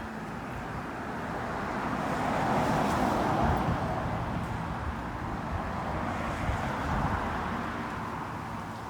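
Road traffic noise: passing vehicles, swelling to a peak about three seconds in and again near seven seconds, then easing off.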